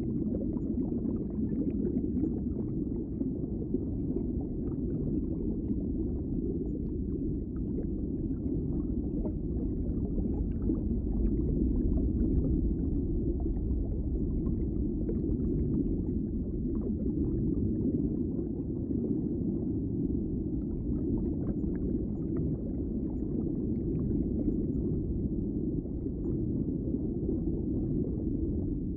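Underwater ambience: a steady, muffled low rumble of water with faint scattered crackles and clicks.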